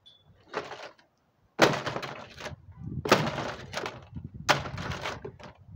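A sledgehammer rammed down onto a toy truck inside a plastic trash can, three blows about a second and a half apart. Each blow is a sharp impact followed by a brief clatter of the truck breaking.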